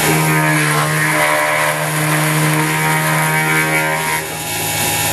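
CNC-converted X2 mini mill cutting 6061 aluminium: a steady motor hum and whine with the hiss of the end mill in the metal. The cutting sound drops away about four seconds in.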